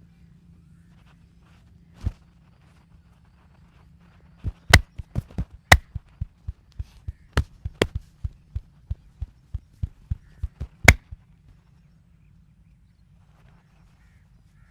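Percussive massage strikes: one sharp knock, then a quick run of sharp cracking strikes at about two to three a second for some six seconds, a few of them much louder than the rest.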